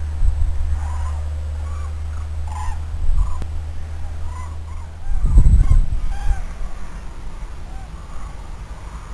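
Common cranes calling in flight: a flock giving scattered trumpeting calls, roughly one a second. A low rumble runs underneath and swells into a loud burst about five seconds in.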